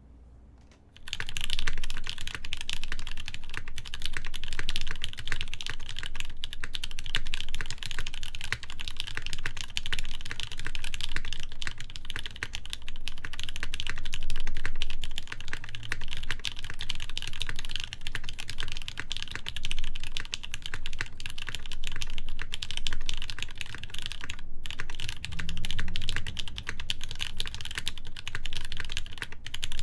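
Steady, fast typing on a mechanical keyboard, a Hineybush Ladybird with lubed Gateron Ink switches, an FR4 plate and GMK ABS keycaps. The keystrokes start about a second in and pause briefly about three-quarters of the way through.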